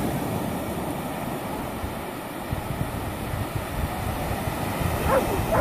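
Wind buffeting the phone's microphone in a steady, rough rumble. Near the end a short pitched, wavering sound cuts in briefly.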